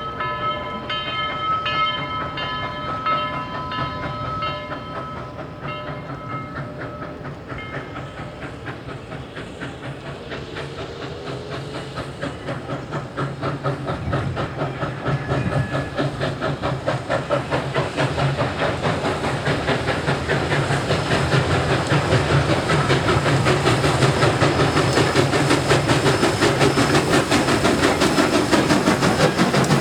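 Southern 4501, a Baldwin 2-8-2 steam locomotive, blowing its chime whistle, several tones sounding together, in a series of blasts that stop about eight seconds in. Then the running locomotive and train make a fast, even rhythmic beat that grows steadily louder as it nears.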